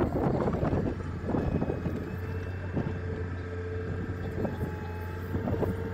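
Engine of a heavy lifting machine running steadily while it hoists a cow on slings. Irregular bursts of wind on the microphone are strongest in the first second or so.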